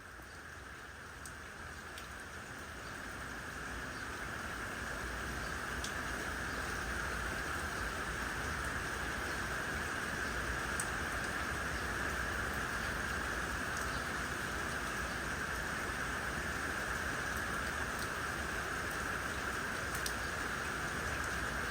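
Steady rain hiss that swells over the first few seconds and then holds, with a few scattered sharp ticks of single drops close by.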